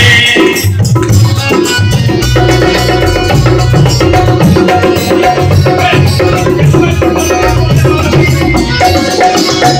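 Live chutney band playing an instrumental break: a steady hand-drum beat with bright percussion and a repeating melody line, loud, with no singing.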